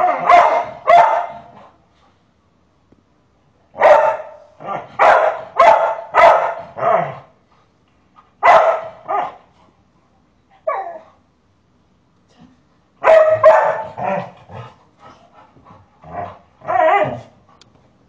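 Golden retriever barking protectively in repeated bursts of several barks each, with a single short falling yelp about eleven seconds in.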